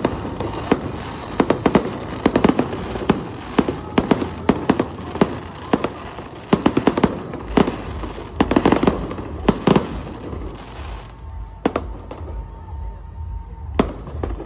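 Fireworks display going off: many sharp bangs and crackles in quick succession, thinning after about ten seconds to a few single bangs.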